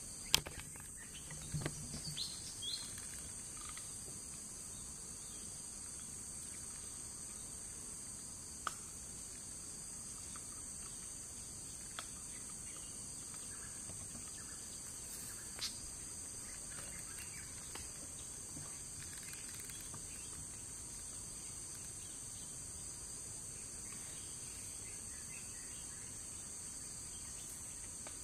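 Steady high-pitched drone of forest insects. A sharp click comes just after the start, a few short knocks and rustles follow in the first three seconds, and single faint ticks come later.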